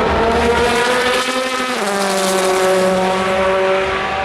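Race car engine running at high revs as it passes, with a clear pitched engine note that steps down in pitch just under two seconds in and then holds steady.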